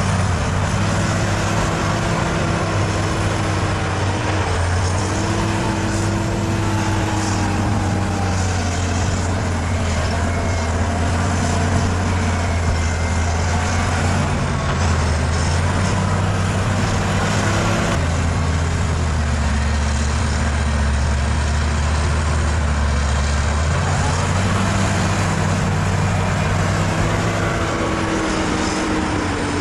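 Bulldozer's diesel engine running steadily under load, its note shifting up and down a few times as the machine works.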